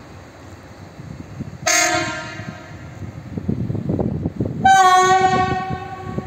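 Horn of a track maintenance work train giving two blasts for its departure: a short one about a second and a half in, then a longer, slightly higher one near the end. The machines' diesel engines rumble underneath as they get going.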